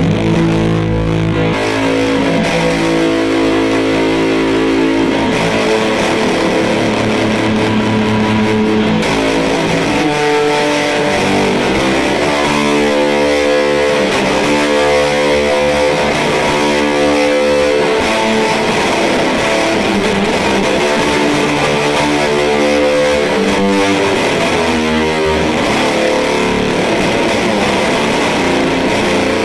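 Electric guitar played through an EarthQuaker Devices Fuzz Master General fuzz pedal into a Fender Deluxe Reverb amp, giving a thick distorted tone. Long held chords for about the first ten seconds, then chords struck over and over in a rhythm.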